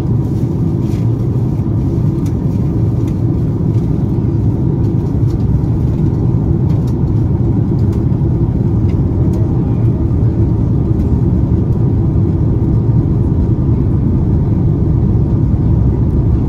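Steady low rumble inside the passenger cabin of an Airbus A330-200 airliner, the noise of its engines and airflow, with a few faint clicks in the first several seconds.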